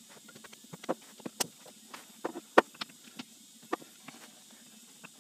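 Three-jaw lathe chuck being worked with its chuck key, turning the scroll to move the jaws. A dozen or so irregular sharp metal clicks and knocks, the loudest about two and a half seconds in.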